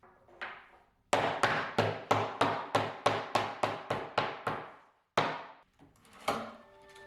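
Mallet blows driving the wooden joints of a dovetailed case together: a quick run of about a dozen sharp knocks at roughly three a second, then two more single blows.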